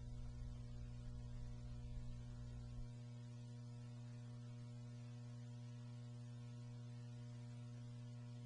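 Faint steady electrical hum, with a low rumble underneath that stops about three seconds in.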